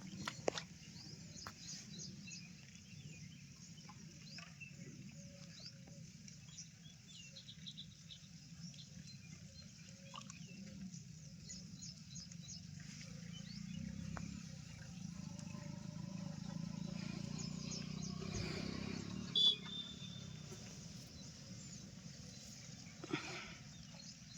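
Outdoor night ambience: many faint, high-pitched chirps from night wildlife over a low, steady rumble, with a few sharp clicks and a brief high tone about two-thirds of the way through.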